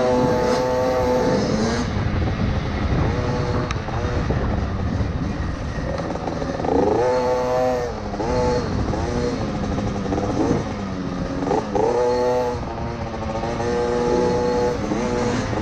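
KTM SX50 mini motocross bike's small single-cylinder two-stroke engine revving up and down with the throttle as it is ridden around a dirt track. There is a heavy low rumble of wind and buffeting on the microphone underneath.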